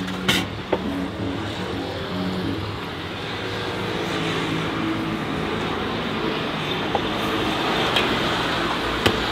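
Street traffic noise, a steady motor-vehicle rumble that swells gradually and eases off, with faint background music underneath.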